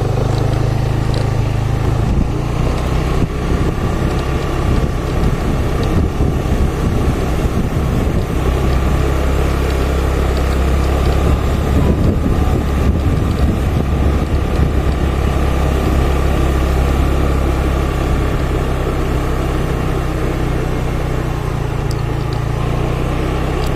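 Motorcycle engine running at a steady cruising pace, with wind buffeting the microphone.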